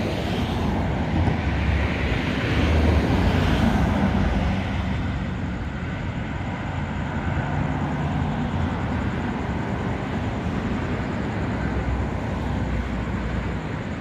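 Steady low rumbling background noise outdoors, with no distinct events, swelling a little about two to four seconds in.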